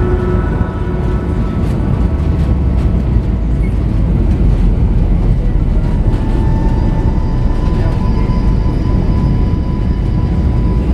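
Cabin noise of an Airbus A319 on approach: a steady low rumble of airflow and engines heard from a window seat over the wing, with a thin engine whine coming in about six seconds in.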